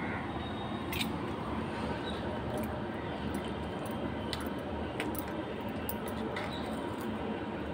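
A metal spoon stirring wet rice and curd in a clay pot, giving short scattered clicks and scrapes against the pot's rim and sides, over a steady background hum.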